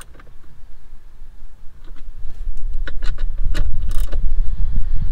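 A few sharp metallic clicks and taps from a socket wrench as wiring connections under the dashboard are checked and tightened. A loud low rumble swells up from about halfway through.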